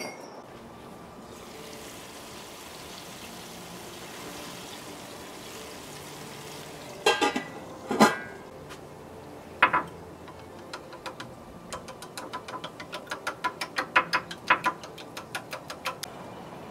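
Steady faint hiss, then a few loud clanks of a stainless steel pan lid being lifted and set down, followed by a quick run of light clinks: eggs being beaten with a metal spoon in a ceramic bowl.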